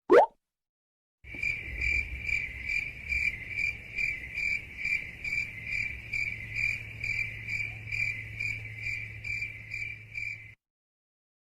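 Crickets chirping in a steady pulsing rhythm, about three chirps a second, over a low hum, cutting off suddenly near the end; it is the stock "crickets" sound effect used to mark an awkward silence. A brief rising blip sounds at the very start.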